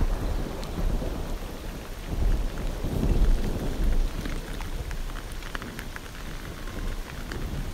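Rain falling on a pool of standing water, a steady hiss with many sharp drop-splashes. A low thunder rumble underneath is strong at first and dies away after about four seconds.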